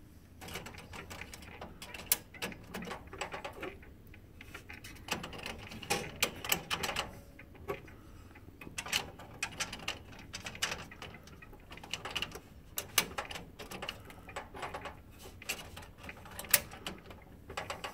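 Plastic paper-feed rollers being slid onto their shafts in an HP M806 laser printer's tray feed area, with many small plastic clicks and taps as they are handled and snap into place.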